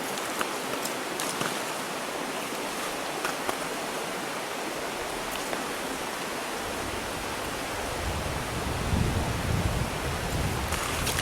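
Small trout stream running, a steady rush of water. A low rumble comes in about seven seconds in.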